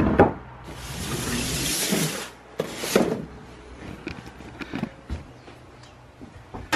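Objects being handled on a wooden workbench: a sharp knock at the start, then a scraping rush for about a second and a half, followed by a few scattered knocks and clicks.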